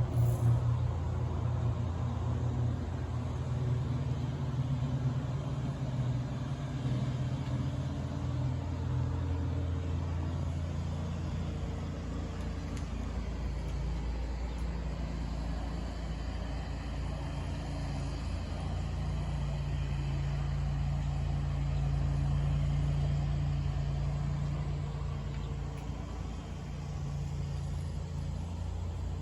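Steady low motor rumble, its hum shifting slowly in pitch and loudness.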